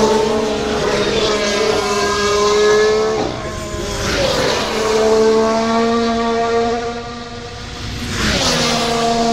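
Formula One cars passing at speed one after another: each engine's high note drops sharply in pitch as the car goes by, about four seconds in and again near the end, then holds steady as the car pulls away down the straight.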